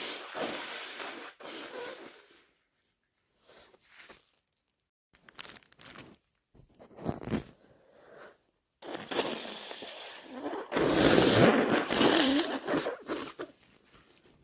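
A person with a head cold blowing their nose into a tissue in a series of thick, snotty blows: a couple of short ones, then a long, forceful blow about nine seconds in, the loudest of them.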